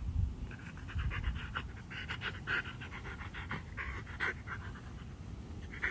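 Siberian husky panting in quick, repeated breaths.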